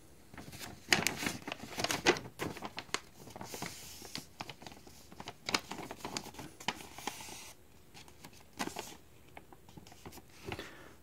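Paper and packing material rustling and crinkling as the contents of a shipping box, including its packing slip, are handled. The crinkling comes in irregular bursts, busiest for most of the stretch, then a brief lull and a few more rustles near the end.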